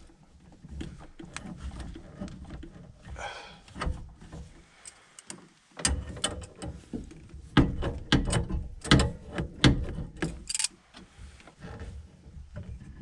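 Metal tools and gas pipe fittings being handled: a string of sharp clicks and knocks, busiest and loudest between about six and ten seconds in, with a short scrape a few seconds in.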